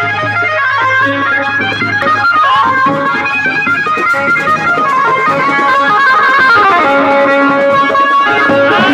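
Instrumental music with a fast, busy melody line of short notes.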